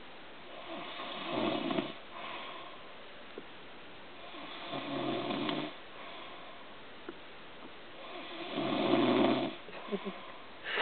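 A person snoring in their sleep: three long snores spaced three to four seconds apart, each swelling and then fading.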